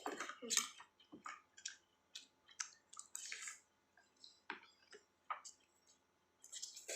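Mouth sounds of someone eating fried noodles: irregular short wet smacks and chewing clicks.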